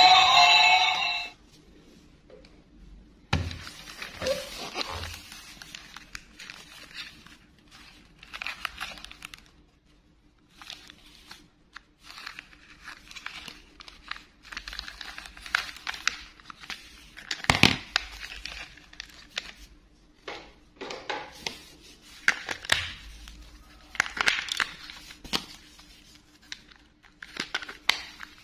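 Handling noise from a plastic toy monster truck being picked up and turned over in gloved hands: irregular rustling, crinkling and clicking of plastic, with one sharper click a little past halfway.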